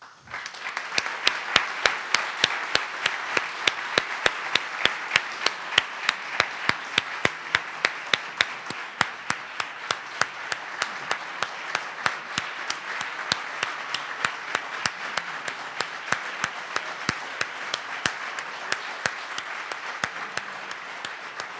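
Audience applauding steadily, with one pair of hands close to the microphone clapping sharply at about three claps a second above the rest.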